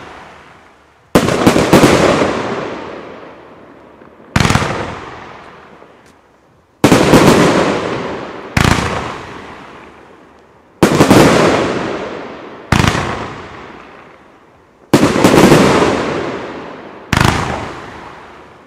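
Pyroland Alpha Edison 30 mm fan cake firing shot after shot: eight sudden loud bangs about two seconds apart, each trailing off in a long fading rumble over a couple of seconds.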